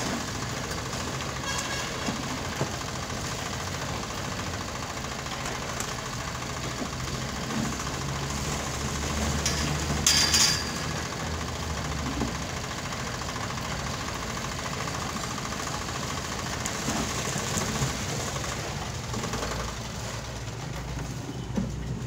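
A small engine runs steadily, with a short loud clatter about halfway through.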